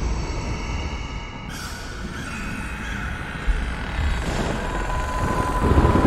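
Eerie Halloween sound-effect ambience: a deep steady rumble under a hiss, with thin held tones drifting above it. A high steady tone comes in about four and a half seconds in. No laughing is heard.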